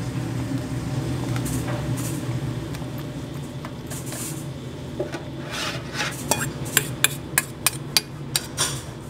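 A metal spoon scraping sauce across a pizza base in a pan, then about eight sharp clinks, roughly three a second, as the spoon taps the pan while vegetable toppings are spooned on. A steady low hum runs underneath.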